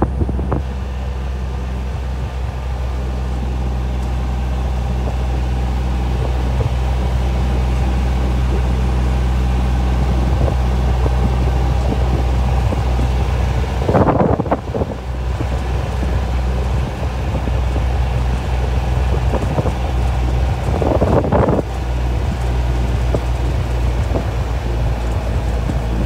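A small vehicle's engine running steadily while driving, with wind noise on the microphone. There are two brief louder bursts, about halfway through and again a few seconds later.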